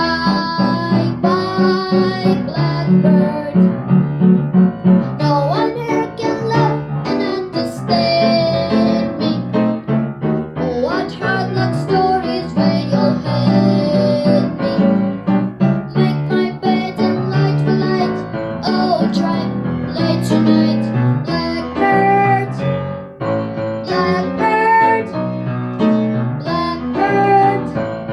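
A song: a child's or high voice singing over piano or keyboard and guitar accompaniment.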